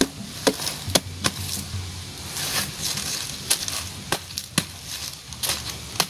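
Machete chopping into a felled banana trunk: about ten sharp, irregularly spaced chops as the soft, fibrous stem is cut into pieces.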